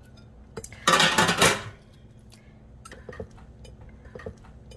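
Pieces of red bell pepper dropped into a ceramic baking dish: a loud clatter about a second in, then light scattered knocks as the pieces are spread around by hand.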